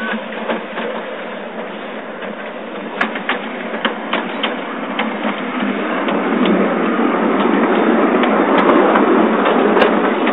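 Miniature ride-on railway train rolling close past, its wheels clicking over the rail joints. The rolling noise grows steadily louder from about halfway through as the carriages go by.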